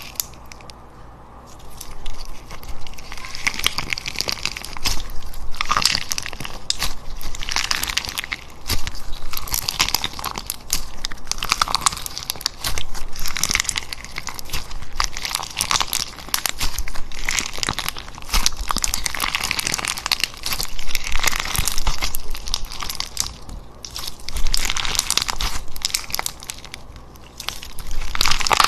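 Slime being squeezed and kneaded by hand, making crunching, crackling sounds that come in repeated waves of a few seconds each.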